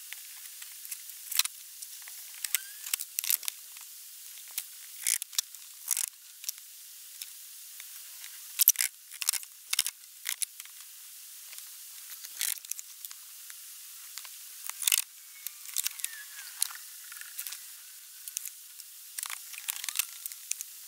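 Scattered clicks, knocks and rustles of hands working on a wooden camper table: lifting off the wooden tabletop and handling metal folding table brackets.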